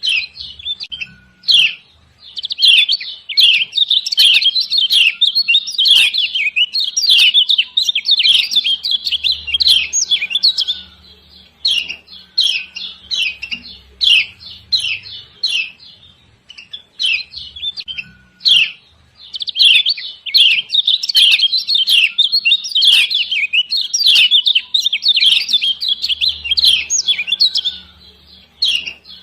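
Female kecial kuning white-eye giving rapid 'ciak ciak' chirping calls, in dense excited runs with sparser chirps between, used as a lure to set caged birds singing.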